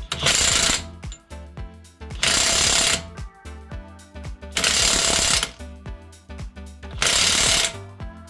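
An impact wrench hammers in four short bursts, each under a second and about two and a half seconds apart. It is spinning the nut on a press tool that draws the new wheel hub into its bearing. Background music plays underneath.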